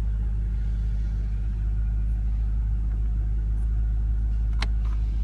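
BMW M5 F10's 4.4-litre twin-turbo V8 idling steadily, a low hum heard from inside the cabin, with two light clicks near the end.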